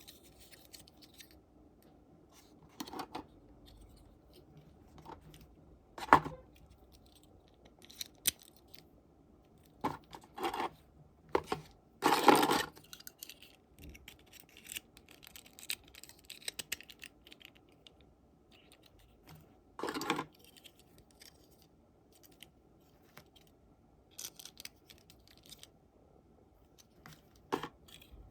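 Small plastic toys and their packaging being handled: scattered clicks, taps and crinkles with quiet gaps between them, and a longer rustle of packaging, about a second, near the middle.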